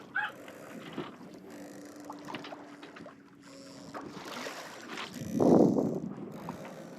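Water washing along a sailboat's hull, with a louder rushing surge about five seconds in.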